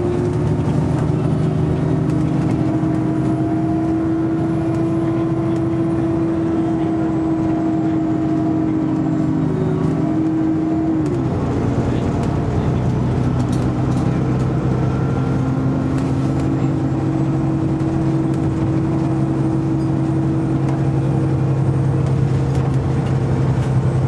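Diesel engine and Voith automatic transmission of a 2009 Alexander Dennis Enviro400 (Trident 2) double-decker bus under way, heard from inside the passenger saloon: a steady drone. About eleven seconds in the engine note glides down and then settles lower. A faint high whine runs above it.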